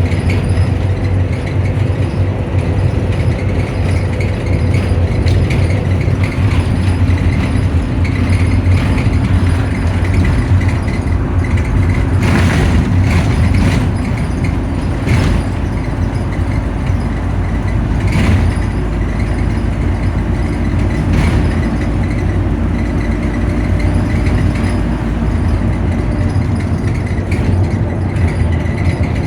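Optare Solo bus's engine idling with its cooling fan running: a steady low drone and whir, with a few brief rattles.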